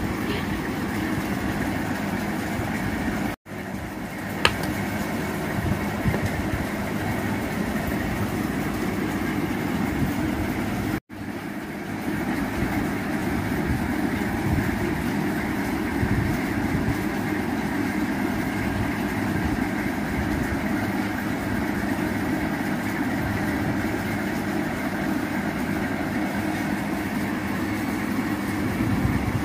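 A steady mechanical hum, even in level, which cuts out abruptly twice, about three and eleven seconds in, with a faint click shortly after the first break.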